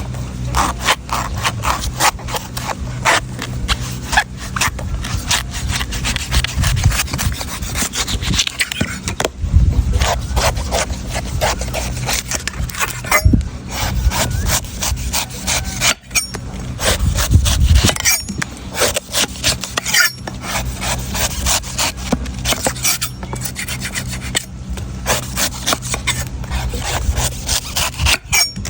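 A knife cutting and scraping into a golden coconut in rapid, repeated rasping strokes, several a second, with short pauses between runs of strokes.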